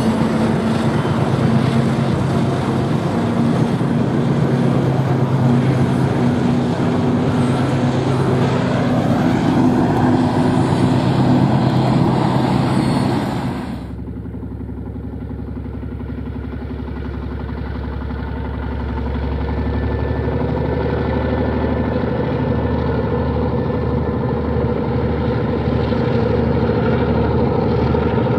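Diesel locomotives hauling a heavy freight train, their engines running steadily under load. About 14 seconds in the sound cuts abruptly to a lower, quieter rumble with a slow pulsing beat, which then grows louder again.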